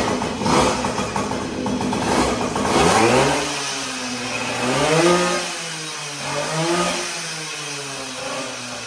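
Tuned moped engine with a handmade exhaust pipe, running rough, then revved several times, its pitch climbing and falling with each rev; a rowdy sound.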